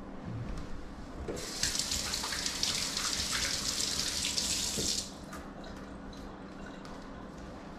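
Kitchen tap running for about three and a half seconds, turned on about a second and a half in and shut off suddenly.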